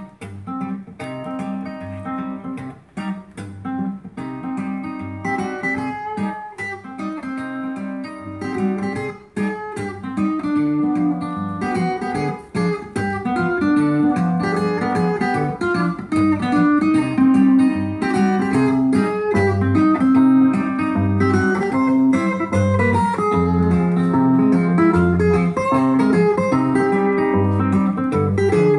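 Guitar music played back from a vinyl record on a Micro Seiko BL-99V turntable with a Denon DL-103S cartridge, heard through hi-fi speakers in the room. It starts softly with plucked notes and grows fuller and louder about halfway through.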